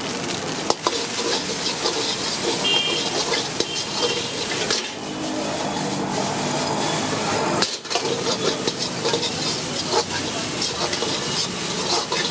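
Steel ladle scraping and clanking against a wok as fried rice is stirred and tossed over high heat, with a steady sizzle of frying underneath.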